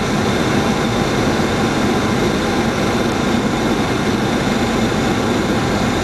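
Steady flight-deck noise of a Boeing 737-700 on approach: a constant rush of air with engine and air-conditioning hum, and a few faint steady tones above it.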